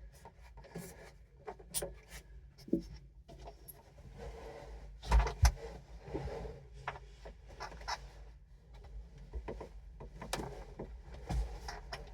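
Scattered knocks, clicks and rubbing from hand work inside a car's cabin as subwoofers are fastened in, with two louder thumps about five seconds in and another near the end.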